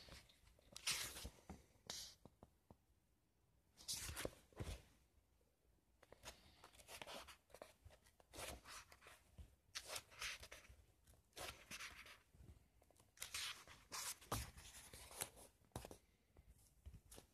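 Book being handled and its paper pages leafed through: soft, irregular rustles and flips of paper, in short bursts.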